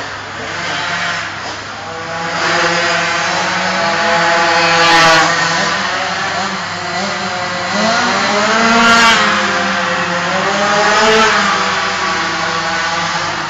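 Small petrol engines of vehicles lapping an indoor kart track, revving up and down as they go by. The pitch rises and falls three times, loudest about five and nine seconds in.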